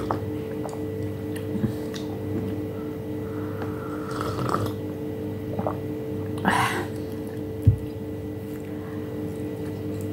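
Sips of coffee from a glass mug, with short slurping and breathy sounds. About three-quarters through there is one low thud as the mug is set down on the table. A steady low hum runs underneath.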